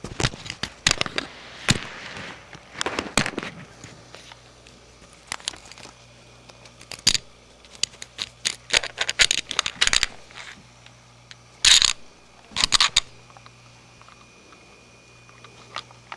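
A kitten pawing and biting at a camcorder and its lens cap close to the microphone: irregular clicks, taps and scratchy rustles, with the two loudest knocks about three-quarters of the way through.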